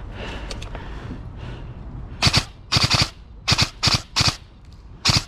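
Airsoft electric rifle firing on full auto in a string of short bursts, starting about two seconds in, each burst a rapid rattle of shots.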